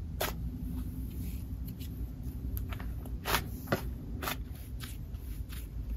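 Soft, fluffy cloud slime squeezed and pressed flat by hand, giving irregular sticky clicks and crackles, the loudest about three seconds in.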